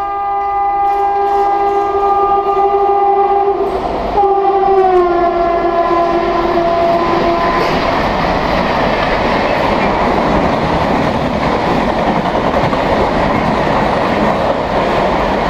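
WAP7 electric locomotive's horn sounding continuously as the train passes at full speed, its pitch dropping as the locomotive goes by, and cutting off about seven seconds in. Then the steady rush and rail clatter of the LHB coaches running past at speed.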